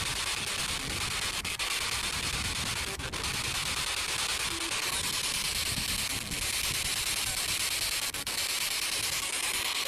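P-SB7 Spirit Box scanning through radio stations: steady rushing static, broken by a few very brief gaps as it jumps from channel to channel.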